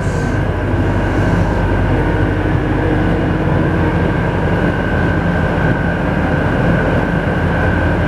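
Sanyo reefer container refrigeration unit running, its evaporator fans blowing: a steady, loud hum with a constant high whine over it, the unit cooling the box well below freezing.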